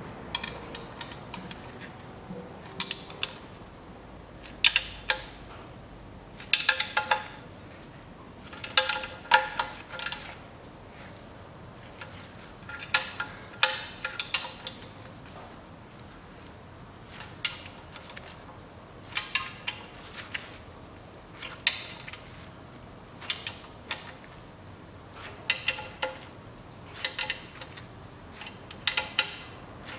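Hand ratchet clicking in short bursts every couple of seconds as the CVT oil pan bolts are tightened a little at a time.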